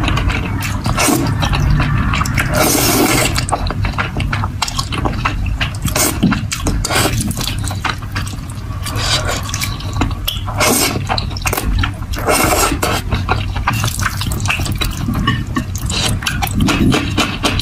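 Close-miked slurping and chewing of saucy spicy noodles: wet sucking bursts and many small moist mouth clicks, one after another.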